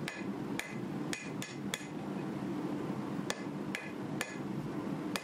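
Hand hammer striking red-hot 1095 steel bar stock on the anvil edge with half-on, half-off blows, setting a notch for the handle. About nine strikes come at an uneven pace, with a pause of over a second near the middle. Each is a short clank with a brief ring.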